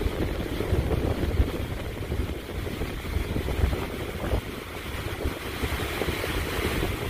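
Water jetting under pressure from a dam's outlet pipe and spraying against the rocks, a steady rushing hiss. A low, fluttering rumble of wind on the microphone runs underneath.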